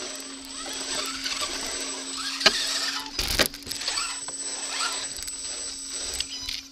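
A 1/8-scale Redcat rock crawler heard from a camera mounted on it: a steady whine from its brushless electric motor and geared drivetrain, with small clicks and rattles as the tyres crawl over rock. A loud knock comes a little past three seconds in.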